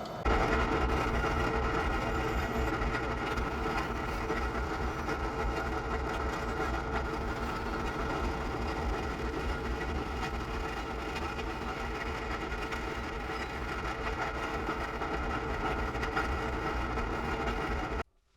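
A motor or machine running steadily with a low rumble, starting abruptly and cutting off suddenly near the end.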